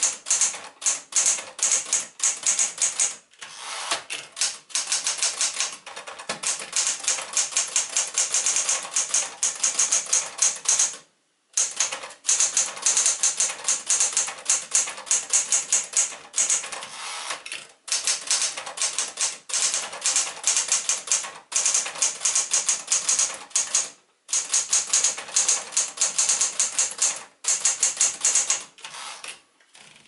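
Sears Forecast 12 typewriter, built by Smith-Corona, being typed on at a quick, steady pace: a rapid clatter of keystrokes with a few brief pauses, the longest about eleven seconds in.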